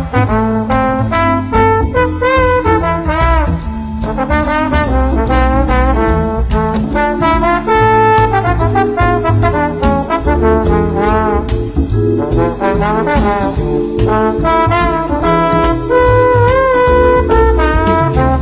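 Background music: an upbeat brass-led tune with trumpet and trombone over a steady bass beat.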